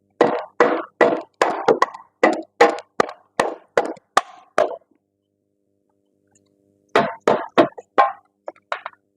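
Hammer blows on metal during front strut removal: a quick run of about a dozen strikes, a pause, then about half a dozen more near the end.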